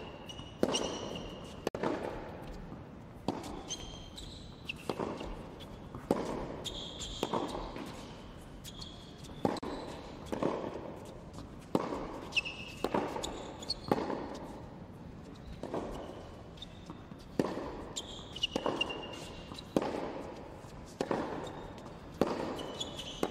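Tennis balls struck by rackets and bouncing on a hard court in a steady practice rally, a sharp pock about once a second, each echoing in a large indoor hall. Short high shoe squeaks come between the shots.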